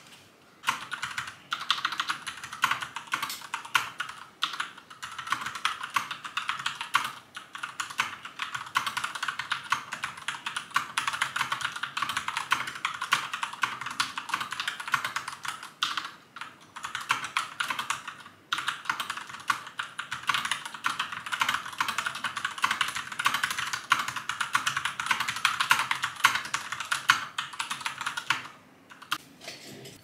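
Typing on a keyboard: rapid, continuous keystroke clicks with a few brief pauses.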